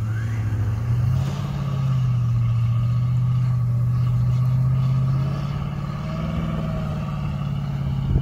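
Truck engine revving and held at high revs under load while trying to free a pickup stuck in deep snow on a tow strap. The pitch climbs about a second in and eases off slightly around six seconds.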